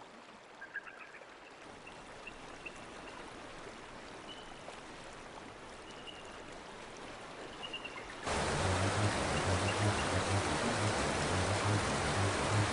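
Gentle flowing river water with a few faint high chirps. About eight seconds in, a much louder rushing of water sets in suddenly with a deep rumble under it: the boat reaching the rapids.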